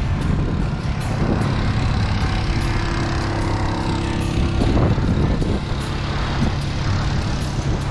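Side-by-side utility vehicle's engine running steadily with a low hum as it drives past on the sand.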